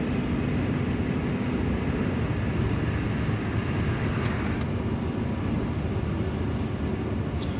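Steady road noise heard from inside a moving car at highway speed: tyres on the road and the engine's low hum, with a faint steady tone that drops away about two seconds in.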